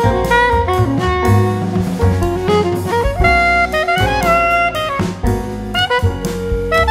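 Instrumental background music: a melody line moving from note to note over drums.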